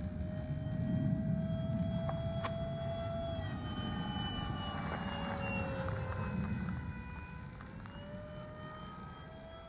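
Habu 32x RC jet's electric ducted fan whining as it flies overhead, its pitch shifting slowly up and down as it passes. It fades in the last few seconds.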